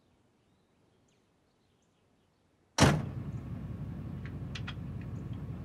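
Near silence with a few faint bird chirps, then about three seconds in a car door shuts with a thunk. The steady low rumble of the car's idling engine follows, heard from inside the cabin, with a few light clicks.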